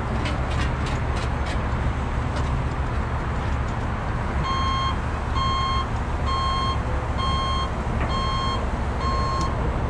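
Heavy rotator tow truck's diesel engine running steadily under a boom lift, with a few light clicks at the start. About halfway through a backup alarm starts beeping, six single-pitch beeps about a second apart.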